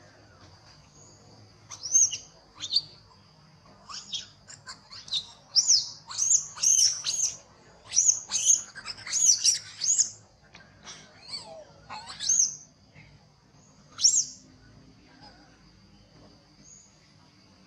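Baby macaque squealing in distress: a rapid run of short, high-pitched arched squeaks, densest in the middle, with one last squeal a few seconds before the end.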